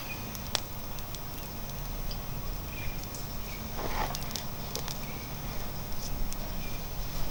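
Tropical forest ambience with scattered light crackles and clicks, like dry twigs and leaves, and a few short high chirps.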